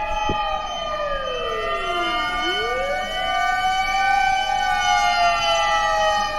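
Sirens of several Japanese fire engines sounding together at once, overlapping at different pitches. One siren winds down to a low pitch about two seconds in and then rises again.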